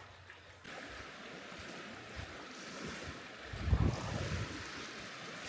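Ocean surf washing on a beach, with wind buffeting the microphone; a louder low surge comes about two-thirds of the way through.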